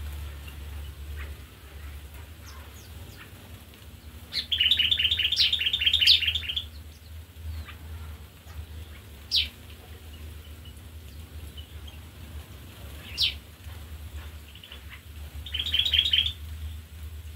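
Aviary songbirds calling: a fast run of repeated chirps about four seconds in and again near the end, with single short downward-sliding whistles in between, over a steady low hum.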